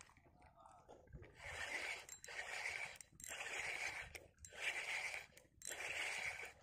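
A faint rhythmic scraping, five rough strokes just under a second long, about one a second, starting about a second in.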